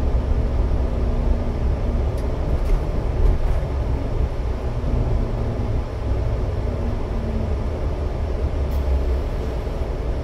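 Steady low rumble of a car's engine and tyres, heard from inside the moving car.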